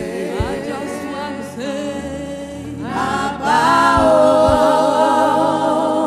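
Gospel choir singing with wavering, vibrato-laden voices, growing louder about four seconds in, with a few low thumps beneath.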